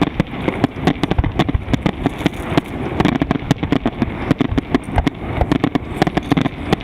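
Fireworks salute going off: a dense, unbroken string of sharp bangs and crackles, several a second.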